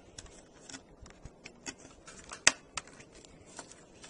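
Small Phillips screwdriver working a screw out of a laptop's plastic chassis: scattered light clicks and scrapes, with one sharper click about two and a half seconds in.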